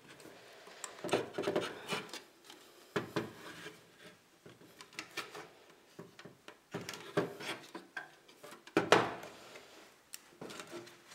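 Hands gripping, rubbing and scraping on the clear plastic cover of an Itron Centron C1S electricity meter while straining to twist it off against its watertight seal, in irregular bursts with a few knocks of the meter against the table, the loudest about nine seconds in.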